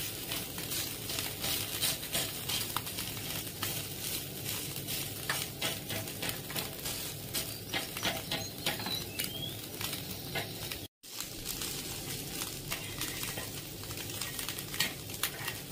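Small fish sizzling and crackling as they fry in oil in a shallow pan, with a metal spatula scraping and stirring them. The sound cuts out for a split second about two-thirds of the way through.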